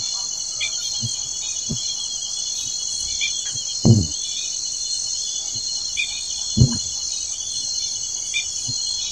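Night insect chorus of crickets: a steady high-pitched drone with short chirps repeating over it. Two dull thumps, the loudest sounds, come about four and six and a half seconds in.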